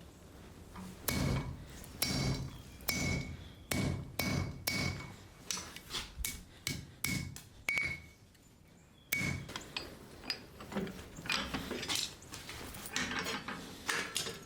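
Hammer blows on hot 5160 spring steel over an anvil, each strike ringing briefly, roughly one or two a second with a short pause about eight seconds in: the tip of a knife blank being forged.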